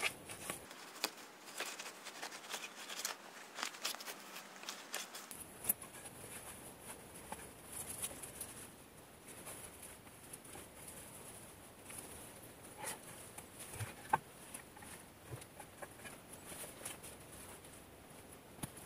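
Moss-and-grass turf being cut and pulled up from the forest floor with a shovel and by hand: irregular rustling, scraping and crackling of moss, roots and soil, with a few sharper snaps.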